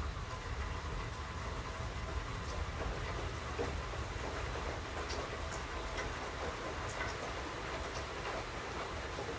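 Steady rain falling during a thunderstorm, with scattered drops ticking close by over a constant low rumble.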